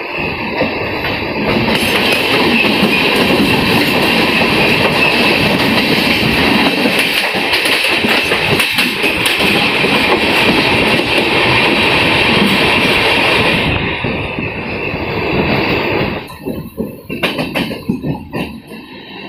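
A Mumbai suburban local train (EMU) passing close on the next track: a loud, steady rush of wheels and rail noise that starts suddenly about a second and a half in and cuts off sharply after about twelve seconds. This is heard from the open door of a moving express train. Afterwards only the express's own quieter, uneven running noise remains.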